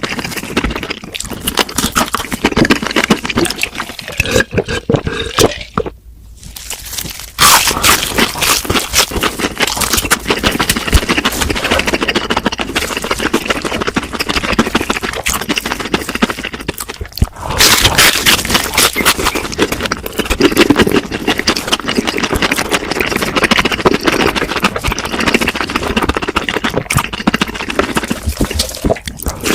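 Close-miked eating of crispy fried food: continuous crunching and chewing, with especially loud crunchy bites about seven seconds in and again about seventeen seconds in.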